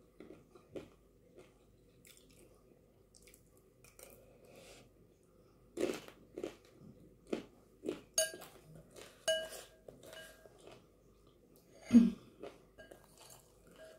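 Close-up chewing and crunching of chana chatpate, a spiced chickpea snack, eaten with a metal spoon from a glass bowl. A spoon clinks and rings against the glass bowl twice in the middle, and a louder knock comes near the end as the spoon goes back into the bowl.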